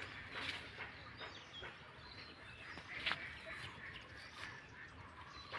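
Faint rustling of bean vines and leaves with scattered snaps as bean pods are picked by hand, one sharper snap about three seconds in. Faint bird calls in the background.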